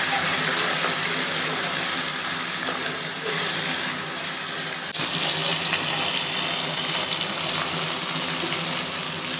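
Sliced onions, tomatoes and green chillies sizzling in hot oil in a kadhai, a steady loud hiss. They are being only lightly sautéed, not cooked through. The level jumps abruptly about five seconds in.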